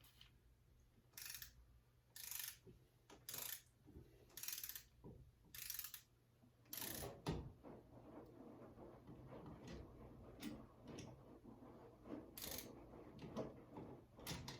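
Ratcheting screwdriver turning a light-switch mounting screw: short runs of ratchet clicks about once a second, a pause of several seconds, then two more runs near the end.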